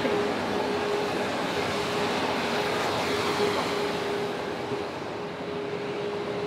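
Dump truck driving past close by on a city street: its engine running with a steady tone under broad road and engine noise that stays loud and eases slightly near the end.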